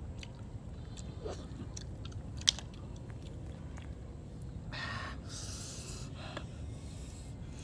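A person chewing clams, with small clicks throughout and one sharp click about two and a half seconds in.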